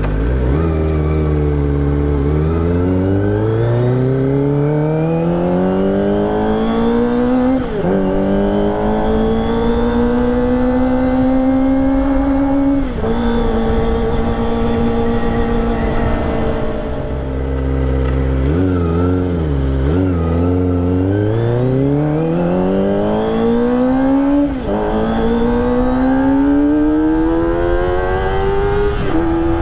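Kawasaki ZX-25R's 250 cc inline-four engine through a ProSpeed Shark high-mount slip-on exhaust, accelerating hard. The revs rise steeply in each gear and drop at four upshifts. About two-thirds through, the revs fall low with a few blips before the bike pulls up through the gears again.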